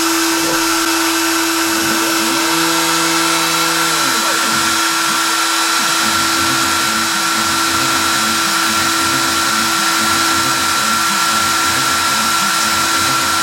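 Makita router spindle on an eShapeoko CNC machine running at a steady speed with a constant whine, while the machine's axis motors sound underneath in short, repeated rising and falling sweeps.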